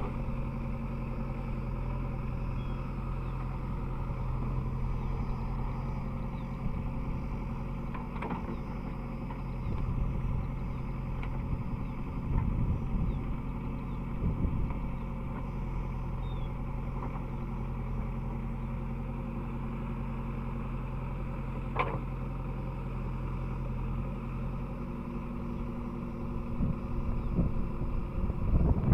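JCB 3DX backhoe loader's diesel engine running steadily, swelling in loudness a few times, with a couple of sharp clicks or knocks.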